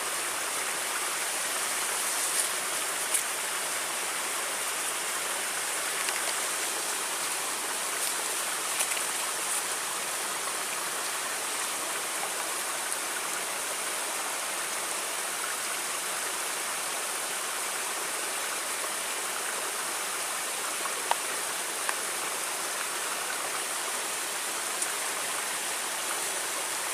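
Steady rushing of flowing river water, with a few faint ticks scattered through it.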